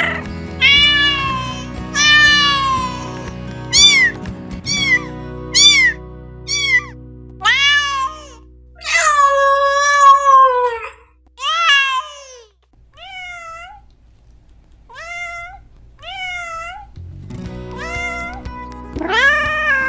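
Domestic cat meowing repeatedly, about a dozen meows of varying length, one of them long and drawn out about halfway through. Background music plays under the meows at the start and again near the end.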